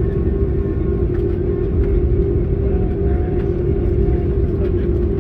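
Cabin noise inside an Airbus A330-200 while it taxis: a steady low rumble with a constant hum running under it.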